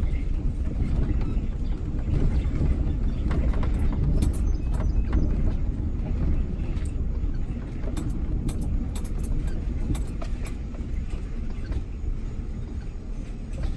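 Loaded pickup truck driving, a steady low engine and road rumble with scattered rattles and clicks about midway.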